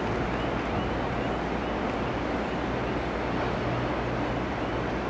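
Korail 311000-series electric train approaching on the line, a steady rumble and hiss with a low hum.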